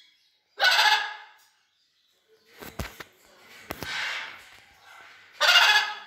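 Blue-and-yellow macaws squawking: two loud squawks about five seconds apart, with a softer call and a couple of low thumps between them.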